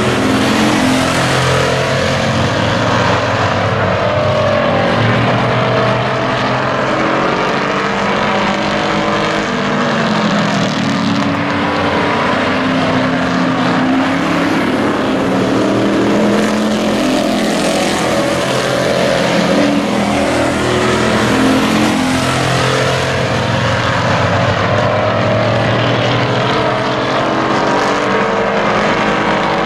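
A pack of racing pickup trucks' engines running hard around a short oval track: several engines at once, their pitch rising and falling over one another as the trucks accelerate down the straights and ease into the turns.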